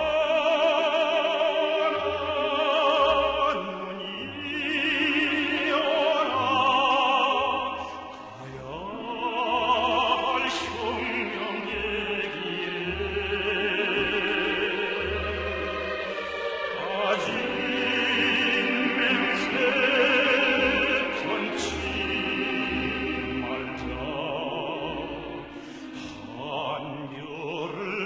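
Music: a singer in an operatic style, the voice wavering with vibrato, over instrumental accompaniment with sustained low notes.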